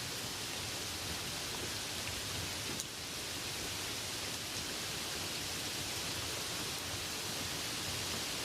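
Light rain falling steadily on a meadow: an even hiss with the odd single drop standing out.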